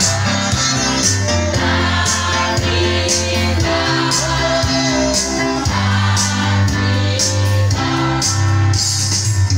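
Live gospel worship song: a group of women singing together, one through a microphone, over amplified band accompaniment with guitar, keyboard and a heavy bass line.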